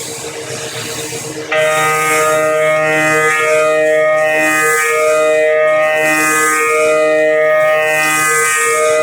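Carbide end mill milling thin steel sheet at 6,000 rpm under oil-mist coolant. A noisy hiss runs until about a second and a half in, then gives way suddenly to a loud, steady, pitched squeal whose upper overtones waver slowly.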